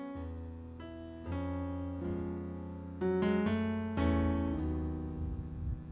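Church keyboard playing sustained chords over deep bass notes, with a new chord struck every second or so.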